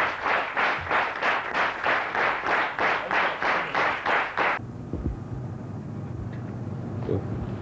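A group clapping in unison, about three claps a second, which cuts off suddenly about four and a half seconds in and leaves a low hum.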